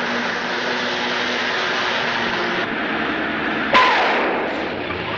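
Car driving at speed: steady engine and road noise, with a sudden louder rush about three and a half seconds in.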